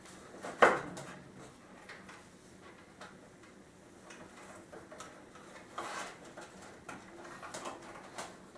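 Handling noise from threading a wire-rope cable through the holes of a wooden chair backrest: one sharp knock about half a second in, then faint taps and scrapes.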